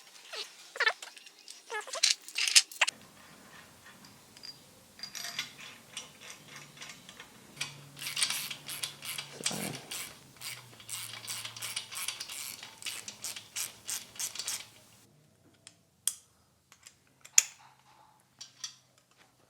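Ratchet wrench clicking in quick runs, about three to four clicks a second, as the main bearing cap bolts of a Holden 308 V8 are tightened down over Plastigauge strips to measure bearing clearance. A few short squeaks come first, and a few single clicks near the end.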